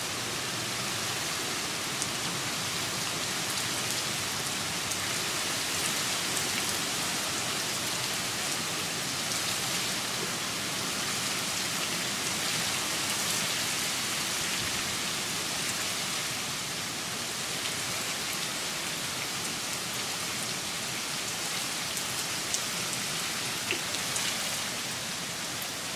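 Heavy rain pouring down steadily in a severe storm, a constant hiss with a few sharper drop ticks.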